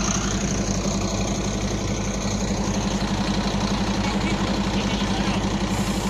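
Mercedes-Benz Atego garbage truck's diesel engine running steadily with an even, rapid pulse, its speed unchanged throughout.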